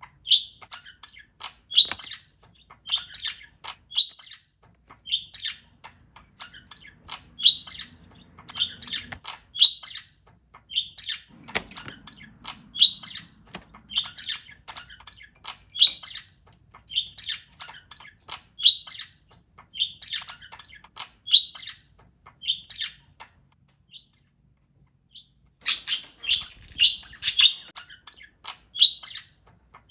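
Pet parakeet chirping: short, high chirps one or two a second, a short pause, then a quicker run of chirps near the end.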